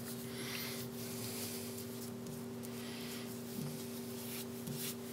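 Soft swishing of a nitrile-gloved hand rubbing a drop of water-based emulsion across a thin kangaroo-leather strop mounted on glass, heard about half a second in and again around three seconds in. A steady low hum runs underneath.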